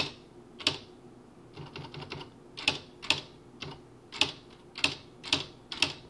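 Smith Corona CXL4200 electronic typewriter printing as keys are pressed: about ten sharp strikes, irregular and roughly one to two a second, over a faint steady hum. This is the machine typing again now that its loose ribbon cassette has been tightened and clicked securely back in place.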